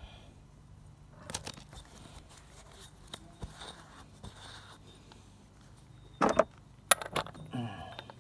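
Scattered metallic clinks and scrapes of hand tools and parts being handled during an oil change, with a couple of louder clanks about six and seven seconds in.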